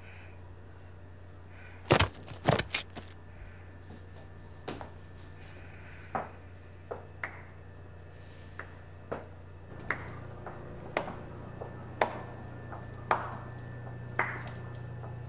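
A low steady hum with sharp knocks over it: two loud knocks about two seconds in, then scattered ones, settling from about nine seconds in into slow footsteps about one a second on a hard floor.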